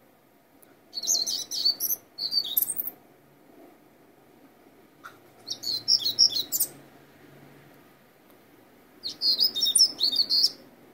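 Common starling singing in three bouts of rapid, jumbled high chattering notes, each one to two seconds long, with pauses between.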